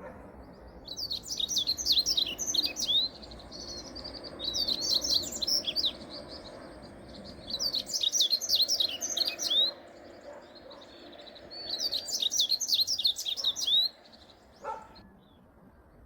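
A wild songbird singing four phrases of rapid, high chirping notes, each about two seconds long, a couple of seconds apart, over a low steady background hum. There is a short, lower call near the end.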